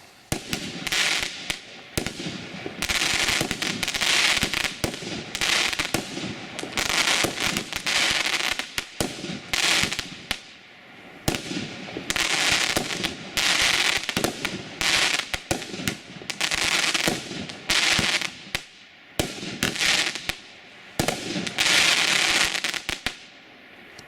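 A 16-shot multishot firework cake firing shot after shot, a burst about every one to two seconds. Each burst is a sharp report trailing off into a spell of hissing crackle.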